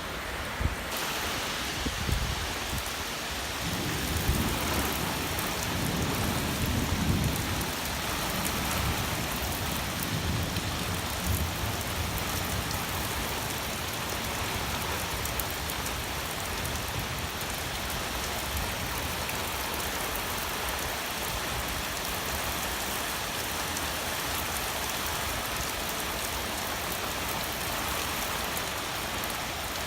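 Heavy rain pouring steadily, with thunder rumbling low through the first several seconds before it fades into the rain.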